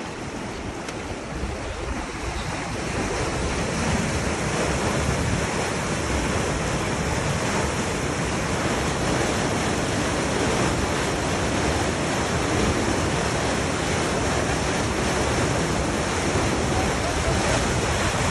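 Water gushing out of a culvert under a concrete slab and churning into a concrete irrigation canal: a steady, loud rush that grows louder over the first few seconds.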